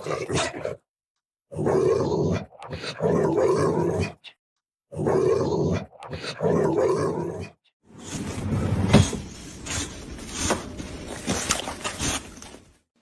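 A dog making drawn-out, growl-like vocalizations in two pairs of long calls. In the last few seconds, clattering with a few sharp knocks.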